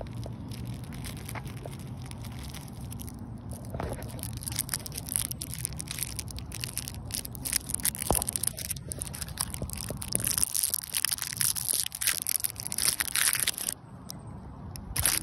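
Close, dense crackling and crunching that starts about four seconds in and stops abruptly near the end, over a low rumble that fades about two-thirds of the way through.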